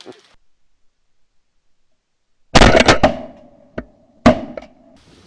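Shotgun blasts: a quick volley of several shots about two and a half seconds in, then another single loud shot about a second and a half later, after a stretch of near silence.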